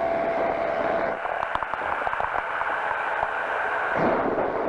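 Steady hiss of a powered parachute in flight as picked up by the pilot's headset intercom microphone, with a faint steady tone through most of it.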